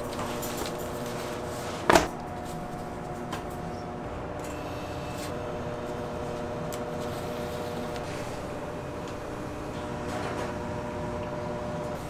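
Kitchen work over a steady machine hum: one sharp, loud clack about two seconds in, and a few light clicks and knocks.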